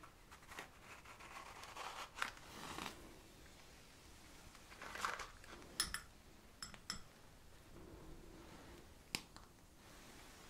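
Close-up handling of a small cardboard matchbox sliding open, then a wooden match struck on its side with a short scratch and flare about five seconds in, followed by a few sharp small clicks.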